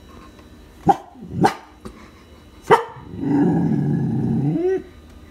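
A dog barking at the glass door: three sharp barks, then a longer drawn-out call that rises in pitch at its end.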